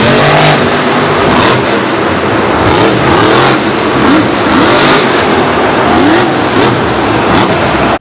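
Monster Jam truck's supercharged V8 revving hard, its pitch rising and falling again and again as the truck drives and pops a wheelie on the dirt.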